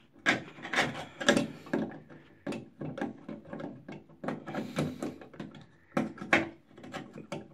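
A Phillips screwdriver turning a long screw out of a bathtub's chrome trip-lever overflow plate, with irregular metal clicks, scrapes and rattles of the screw and plate.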